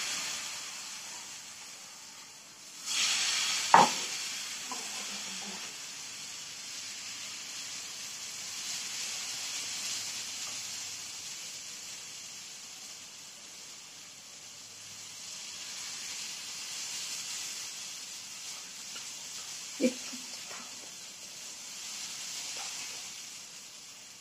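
Coconut and semolina pancake batter sizzling in a hot ghee-greased frying pan as it is poured in and spread. The hiss swells about three seconds in, and two short knocks come just before four seconds and near twenty seconds.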